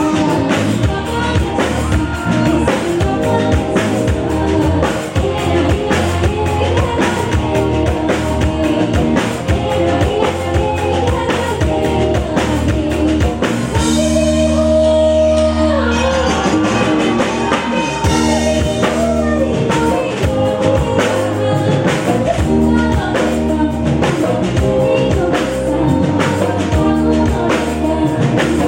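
Live band music with singing over a drum kit beat. About halfway through, the drums drop out for a few seconds under a held chord, then the beat comes back in.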